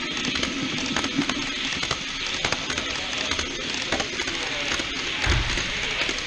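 An H0-scale model container freight train's wagons rolling past close by, their wheels running on the track with a steady stream of irregular clicks over the rail joints. There is a short low bump about five seconds in.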